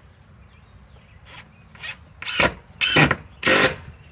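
DeWalt cordless driver driving a screw down into an OSB board in three short, loud bursts about half a second apart, starting a little over two seconds in, with the screw rubbing and squealing in the wood.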